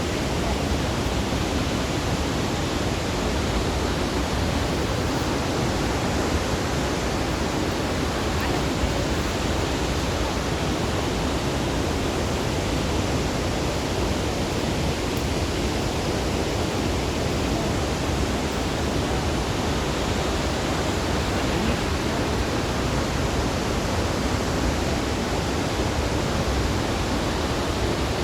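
Iguazu Falls: the steady, unbroken rush of a large waterfall.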